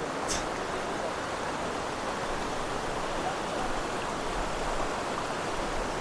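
Shallow, fast mountain stream rushing over rocks: a steady, even rush of water.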